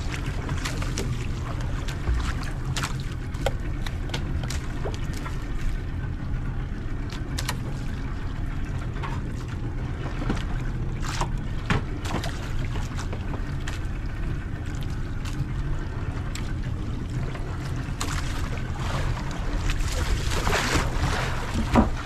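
Fishing boat's engine running steadily with a low hum, with scattered sharp clicks and knocks and a rush of hiss near the end.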